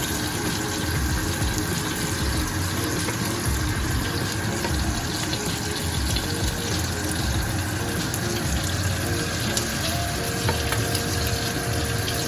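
Pot of chicken sour soup boiling on the stove, giving a steady bubbling.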